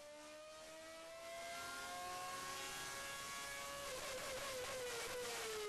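Renault Formula 1 racing engine running at high revs on a dynamometer test bench. Its high, whining note climbs slowly at first, then falls about four seconds in.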